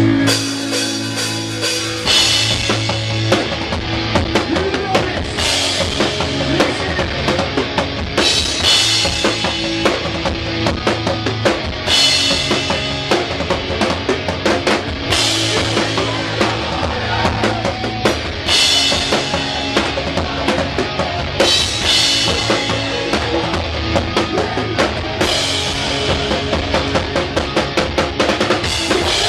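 Hardcore band playing live at full volume, heard close behind the drum kit: kick and snare driving hard, with a crash cymbal about every three seconds once the drums come in, about two seconds in.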